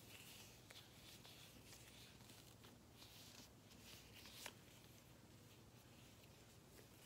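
Very faint rubbing and stretching of an uninflated latex balloon between the fingers, with a few soft clicks, the sharpest about four and a half seconds in.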